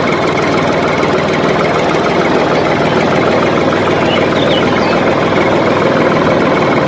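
Tractor engine running steadily at idle, with a few faint bird chirps about four seconds in and near the end.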